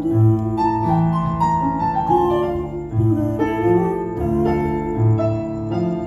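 Stage keyboard with a piano sound playing held chords and single melody notes, an instrumental passage without singing.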